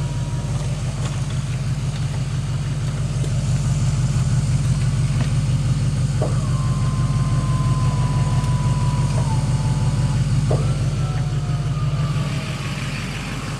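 Tow truck's engine running steadily with a low hum, growing louder through the middle and easing off near the end, with a thin whine over it.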